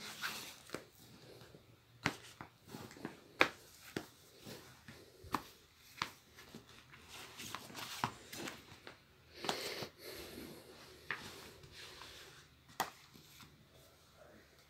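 Handling of books and magazines on a cloth bed cover: irregular sharp taps and clicks, with a brief paper rustle about nine and a half seconds in.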